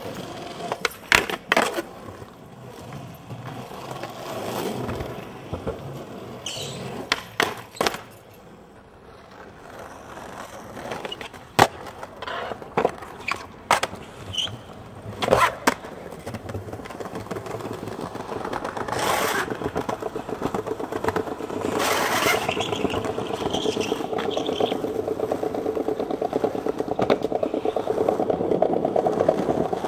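Skateboard sounds: urethane wheels rolling on pavement, broken by several sharp clacks and slaps as the board is popped and landed, the loudest about a third of the way in. In the second half the rolling grows steadier and louder.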